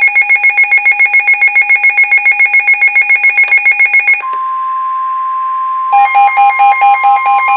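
Rapid electronic alarm beeping, about seven or eight beeps a second, stops about four seconds in and gives way to the steady NOAA Weather Radio warning alarm tone. Near six seconds the beeping starts again on top of the steady tone, which cuts off near the end.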